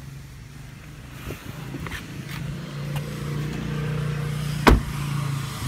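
A car engine idling with a steady low hum that grows louder about halfway through, with a few light handling clicks and one sharp thump near the end.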